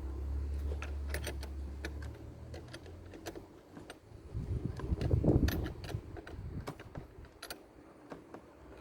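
Light metallic clinks and taps of tools and terminal hardware as a cable terminal is fastened onto a car battery's negative post. A low rumble swells about halfway through.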